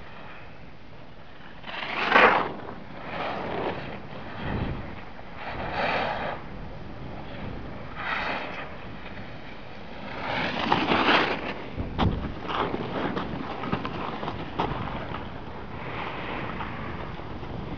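Edges scraping and hissing across packed spring snow in a run of turns, swelling every second or two, the loudest about two seconds in, then turning into a choppier, rattling scrape from about twelve seconds on, with wind on the microphone.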